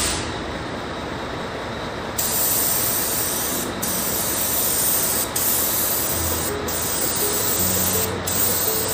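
Air-fed gravity-cup spray gun hissing as it sprays paint onto a tank, getting stronger about two seconds in, with a few very short breaks between passes.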